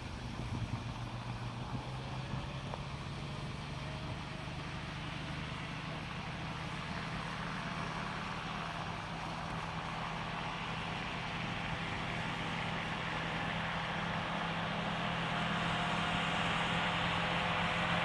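Tractor engine running steadily while mowing grass, slowly growing louder as the tractor comes closer.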